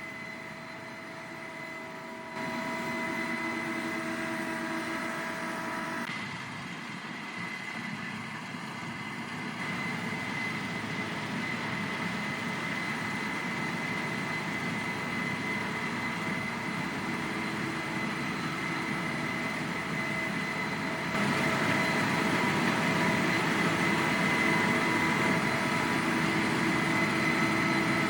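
Case combine harvester on rubber tracks running, a steady engine-and-machinery noise with a held high whine over it. It gets louder in a step about two seconds in and again about two-thirds of the way through.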